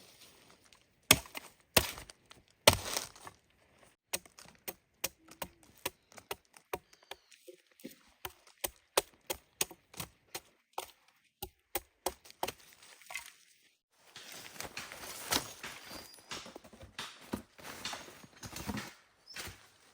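A blade chopping into wood or plant stalks: three hard strikes, then a long run of quicker, lighter chops. About two-thirds of the way through comes a few seconds of steady rough noise with more knocks in it.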